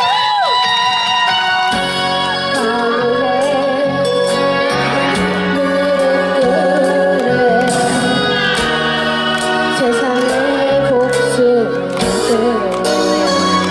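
A boy singing into a microphone over a pop backing track played through stage PA speakers. The bass and beat come in about two seconds in.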